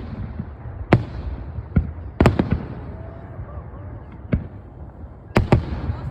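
Aerial firework shells bursting: about eight sharp bangs at irregular intervals, several in quick pairs, over a steady low rumble.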